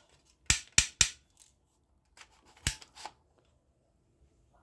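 Sharp plastic clicks from a toy army gun and its bullet box being handled: three quick clicks about half a second in, then three more around the three-second mark.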